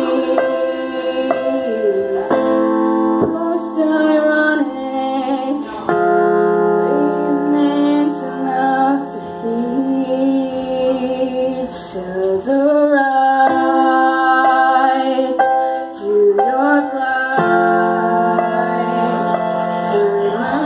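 A woman singing a slow song over sustained electric keyboard chords, in phrases with short breaks between them.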